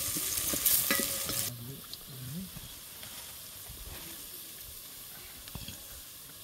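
Sliced onions frying in oil in a stainless steel bowl, sizzling loudly while a wooden spoon stirs and scrapes against the steel. About a second and a half in, the sizzle drops suddenly to a quiet hiss, with occasional taps of the spoon.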